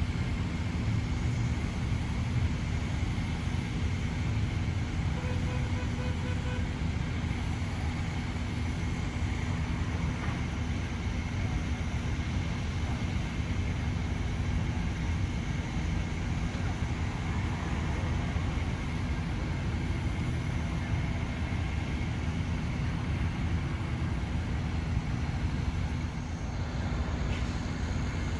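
Steady low rumble with a constant hum running under it, like engine noise.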